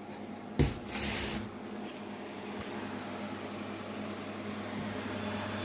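A metal incubator tray knocks once sharply about half a second in, then slides with a brief scraping rush. Under it runs the incubator's steady low hum.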